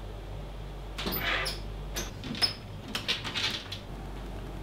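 A door being opened: a few short scraping, rubbing sounds with brief high squeaks over a couple of seconds.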